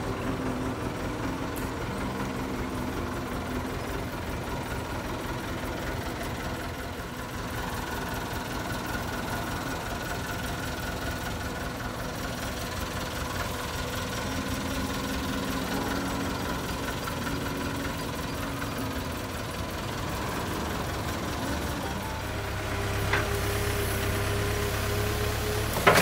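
JCB 3CX backhoe loader's diesel engine running steadily. Over the last few seconds it gets louder with a rising whine as the backhoe works, and a sharp knock comes at the very end.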